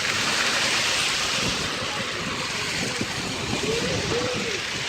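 Steady rushing wind and water noise, with faint voices about three and a half seconds in.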